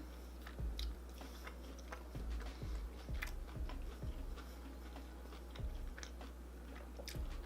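A person chewing a mozzarella stick close to the microphone, with scattered soft mouth clicks and smacks.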